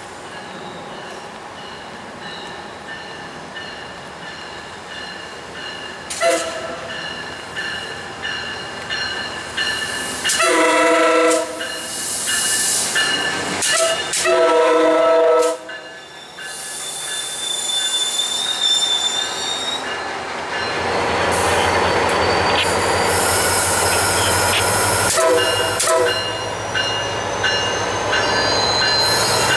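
A MARC commuter train's diesel locomotive sounds its multi-chime air horn as it approaches: a short blast about six seconds in, two long blasts around ten and fourteen seconds in, and another short blast near 25 seconds. In the later part the train runs past close by with a loud, steady rumble, and a high wheel squeal rises in pitch near the end.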